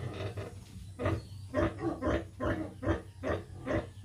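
A sow that has just farrowed grunts in a steady rhythm, about two to three short grunts a second, evening out from about a second in.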